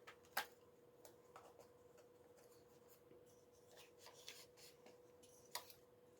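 Faint clicks and rustling of hands handling a camcorder while plugging a microphone cable's jack into it, with one sharper click about half a second in and another near the end, over a faint steady hum.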